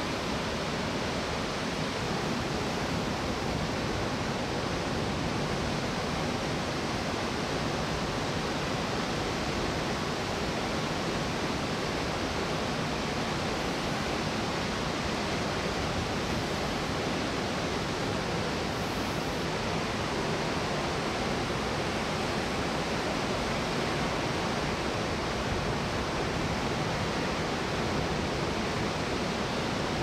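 Ocean surf from a big swell, heard as a steady, even rush with no separate wave crashes standing out.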